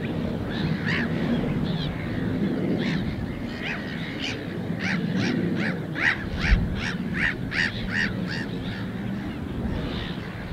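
Wetland birds calling over a low rush of wind: scattered short calls, then a fast run of about ten short honking calls, roughly three a second, from about five to eight seconds in.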